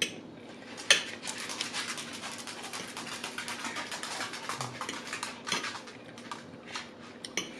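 Cutlery scraping and clinking on a plate: two sharp clinks, then about five seconds of rapid, continuous scratchy scraping, as of a knife cutting food, with a few more clinks near the end.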